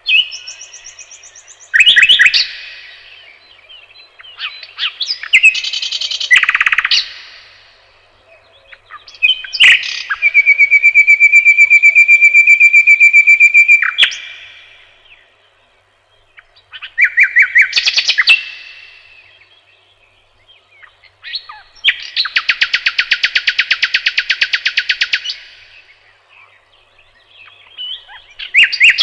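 A songbird singing loud, varied phrases separated by short pauses. It gives clicks and quick notes, a long fast trill held about four seconds near the middle, and later a buzzy rattle lasting about three seconds.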